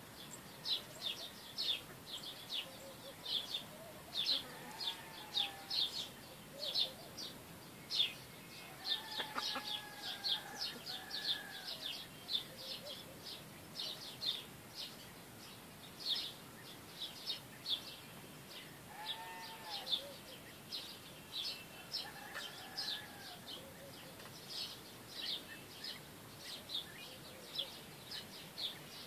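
Small wild birds chirping in rapid, continuous high-pitched bursts. A few short, lower, arched calls from free-range chickens come through now and then, most plainly about 10 s and 20 s in.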